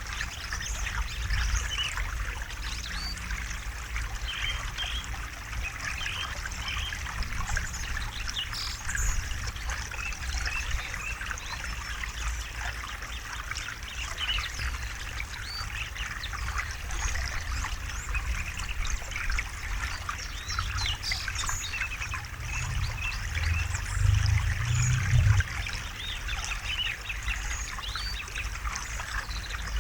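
River water trickling and flowing steadily, with birds chirping on and off throughout. A louder low rumble swells for a couple of seconds about three-quarters of the way through.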